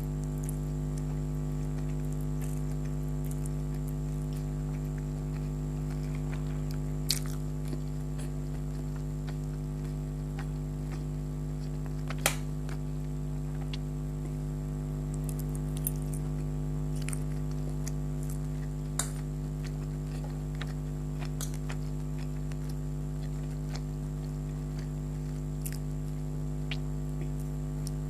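Person eating chicken hakka noodles: quiet chewing with scattered sharp clicks, the loudest about seven and twelve seconds in, over a steady electrical hum.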